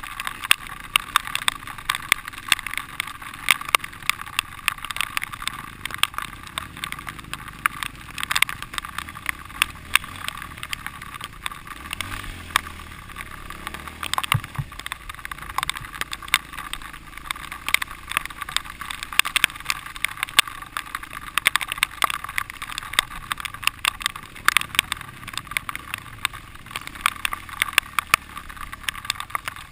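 Dirt bike ride heard from a helmet camera: the engine muffled and indistinct under a constant, irregular rattle of clicks and knocks from the rough trail.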